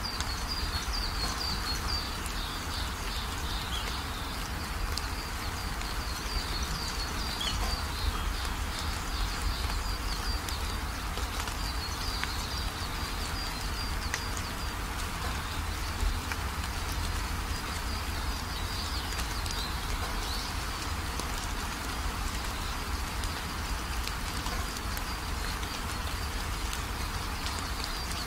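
Steady background hiss with a high, rapidly repeated chirping running through it and a low hum underneath.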